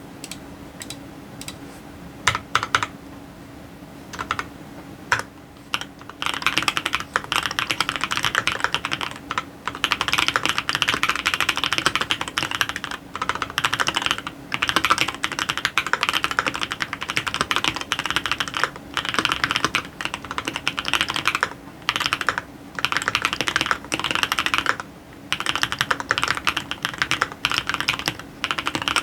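Keystrokes on a TX66 custom mechanical keyboard with fully lubed Creamsicle switches and a one-layer tape mod. A few scattered key presses come first, then fast continuous typing from about six seconds in, broken by a few short pauses.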